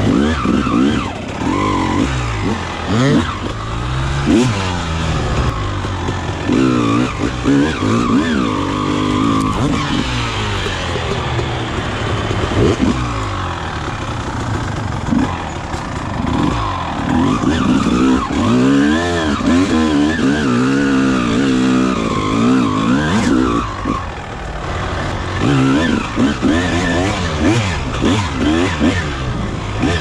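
1999 Honda CR250R's single-cylinder two-stroke engine being ridden on and off the throttle, its pitch rising and falling over and over with each burst of revs.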